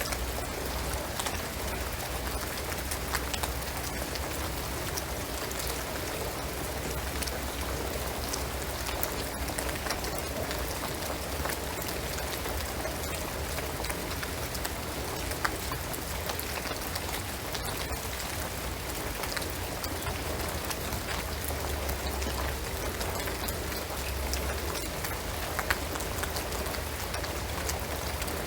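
Steady rain falling on a shingled roof and pine trees, an even hiss with scattered individual drops ticking sharply, over a steady low rumble.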